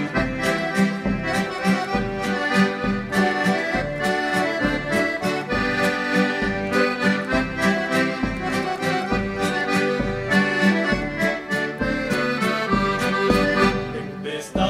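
Instrumental passage of a Chilote folk song: an accordion leads the tune over a steady beat, with no singing.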